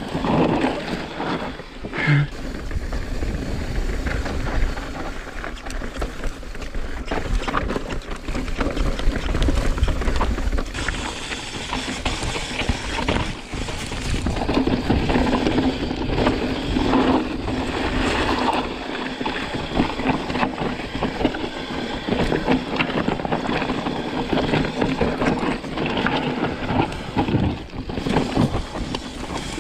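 Full-suspension mountain bike descending a steep, dusty, rocky dirt trail: tyres rolling and crunching over dirt and stones, with the bike's chain and parts rattling and clattering over the bumps.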